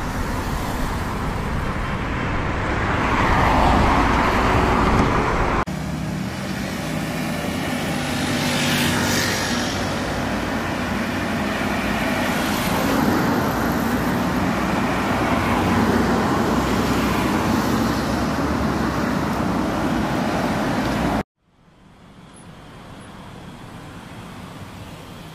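Road traffic noise from moving cars: steady tyre and engine noise with a low hum. It shifts abruptly about a sixth of the way in, then cuts off sharply near the end to a much fainter steady hiss.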